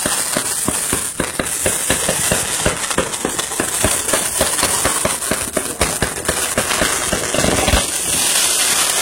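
Firework burning: a steady hiss with rapid crackling pops, several a second.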